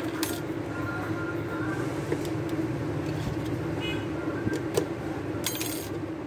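Steady road-traffic noise with a brief high beep about four seconds in. The cardboard phone box and paper leaflet being handled give light taps and rustles, most clearly a second before the end.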